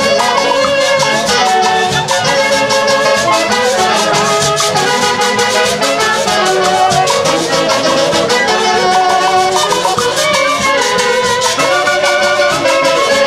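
A huaylash played by a Tarma orquesta típica: a saxophone section plays the melody in close harmony over harp and drums, with a steady, quick beat.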